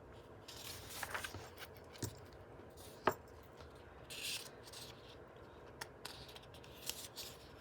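Paper pages of a book being turned and handled: two short rustles of paper and a few light taps or clicks, the sharpest about three seconds in.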